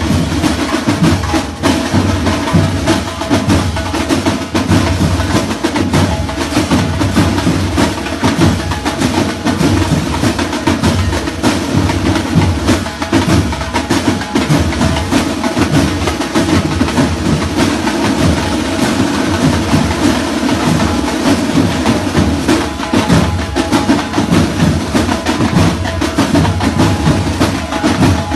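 A band playing loud, continuous music driven by drums and percussion, with many quick drum strokes over a heavy low end.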